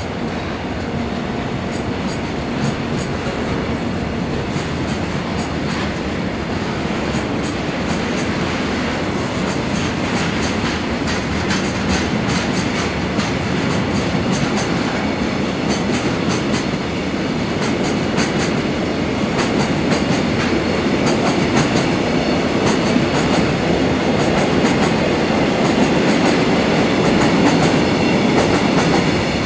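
Freight train's loaded tank wagons rolling past, steel wheels clicking over rail joints in an irregular clickety-clack over a steady rumble, growing slightly louder near the end.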